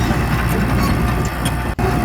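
Mitsubishi bulldozer's diesel engine running steadily, with a deep low rumble; the sound cuts out for an instant near the end.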